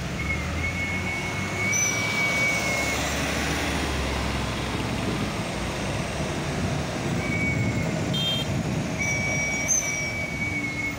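Fully loaded three-axle cargo trucks rolling slowly past, their diesel engines running steadily under load with tyre and road noise. A low rumble is strong in the first few seconds, and a thin high whistle comes and goes several times.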